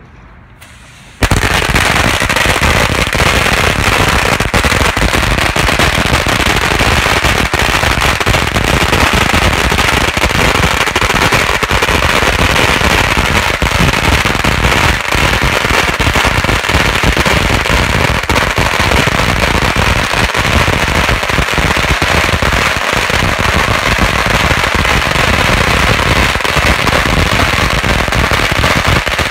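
A long string of red paper firecrackers going off in a dense, unbroken rattle of sharp bangs, starting suddenly about a second in and staying loud throughout.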